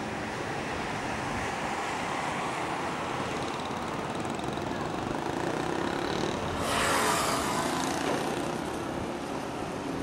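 Road traffic on a multi-lane city avenue: a steady hum of cars and motorcycles. A louder rush rises suddenly about two-thirds of the way in and fades over a second or so.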